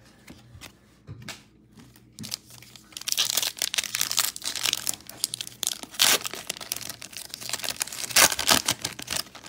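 Foil wrapper of a 2021 Panini Absolute Football trading-card pack crinkling and tearing as it is ripped open by hand. Light handling clicks at first, then dense crinkling from about three seconds in, with sharp rips around the middle and near the end.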